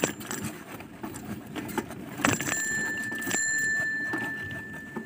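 A bicycle bell is struck once about two seconds in, and its metallic ring holds on and fades slowly over the next few seconds. Before it the bicycle rattles and knocks over the rough path.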